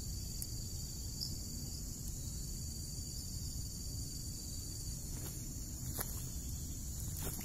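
Steady high-pitched insect chirring at two even pitches over a low rumble. In the second half, a few brief rustles and clicks as a person stands up and steps through the grass.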